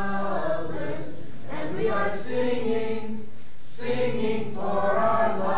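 A group of people singing together unaccompanied, in long held phrases with short pauses for breath.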